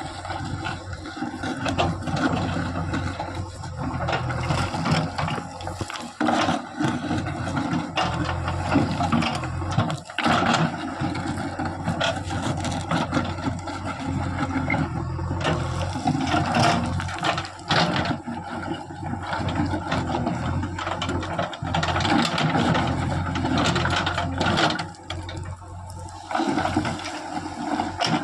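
JCB 3DX backhoe loader's diesel engine running steadily, with repeated clanks, knocks and rattles from the bucket working and loose soil spilling.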